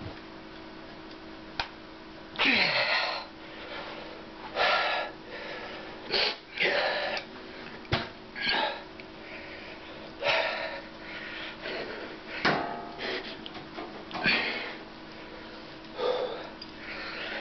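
A man breathing hard in short, forceful breaths and grunts, one every second or two, from the effort of trying to bend an adjustable wrench by hand. A steady hum runs underneath.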